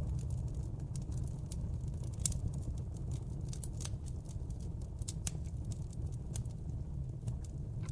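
Wood fire burning in a fireplace: a steady low rumble of the flames with irregular sharp crackles and pops, several a second.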